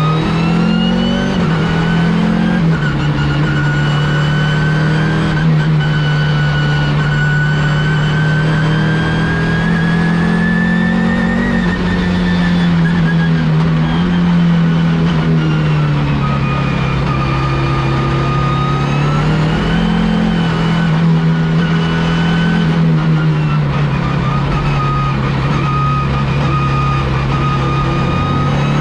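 Audi S2-R's turbocharged five-cylinder engine running under load at race pace, its revs climbing slowly and easing back in long sweeps.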